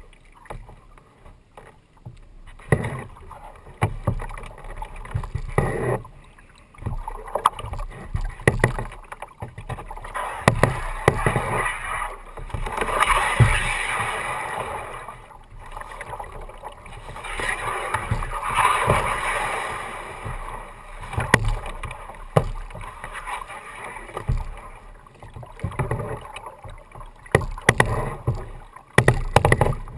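Kayak paddle strokes: a double-bladed paddle dipping into and splashing the water, with water sloshing close to the plastic hull, in uneven swells and short sharp splashes, loudest in two longer stretches near the middle.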